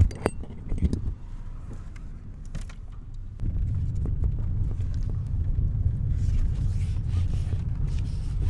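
A car on the move: a few light knocks, then a steady low rumble that sets in about three and a half seconds in.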